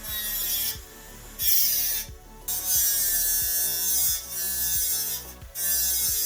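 Hard-drive grinder, its spinning platter faced with sandpaper, grinding in repeated bursts of a second or so with short breaks between, as something is pressed against the disc and lifted off.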